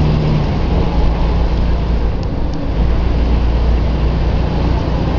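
Volvo B10M EDC bus's six-cylinder diesel engine running steadily with a deep drone, its note dropping lower about a second in.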